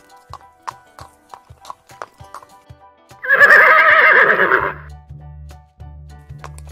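Horse hooves clip-clopping at about three steps a second, then a horse neighing once, loudly and for about a second and a half, a little over three seconds in.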